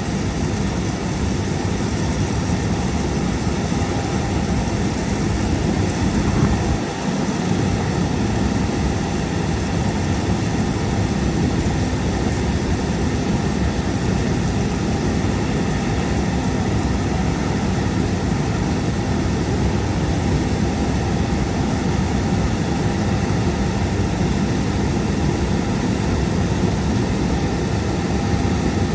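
Combine harvester running steadily while shelling corn: a constant heavy engine and threshing-machinery drone.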